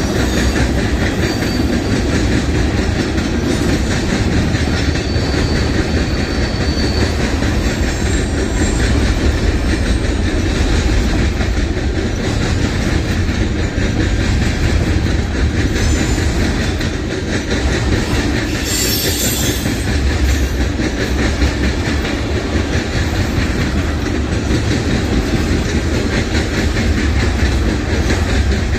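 CN freight train's tank cars and boxcars rolling past close by: a loud, steady rumble and clatter of steel wheels on the rails, with a faint thin wheel squeal now and then in the first several seconds and a brief high hiss about two-thirds of the way through.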